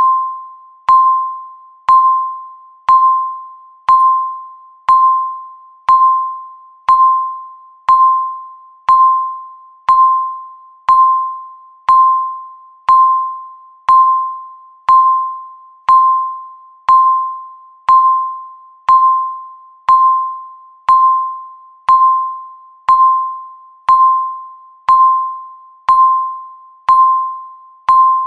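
Countdown timer beeping once a second: a single electronic tone that starts sharply and dies away before the next, about 28 times in a steady rhythm.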